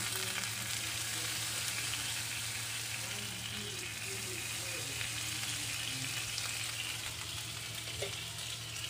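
Water sizzling in a hot non-stick frying pan around bread pizzas, a steady hiss as it turns to steam to melt the cheese on top.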